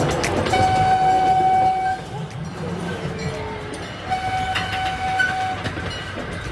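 A horn sounding two long, steady toots, each about a second and a half, over a busy background.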